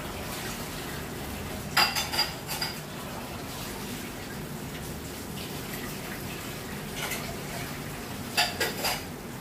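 Lòng tong fish braising sauce simmering and bubbling steadily in a wok as it reduces. Two short bursts of sharp clinking cut in, about two seconds in and again near the end.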